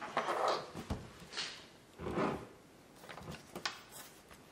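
Handling noises of a 1:10 RC pan car chassis being picked up, turned onto its side and set down on a setup board: a series of soft knocks, scrapes and rustles, with a sharper click shortly before the end.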